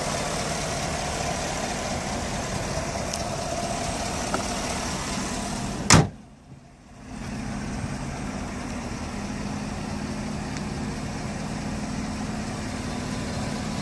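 Chevrolet Silverado pickup's engine idling steadily. About six seconds in there is one loud slam, the hood being shut. The sound dips for about a second after it, then the engine comes back duller.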